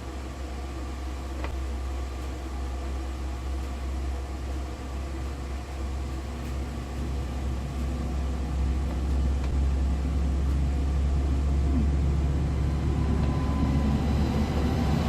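Ford Escape running with a steady low hum, gradually growing louder.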